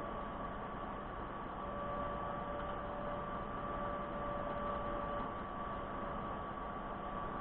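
Steady hiss and electrical hum with a faint high steady tone throughout, joined by a second, lower tone from about two to five seconds in.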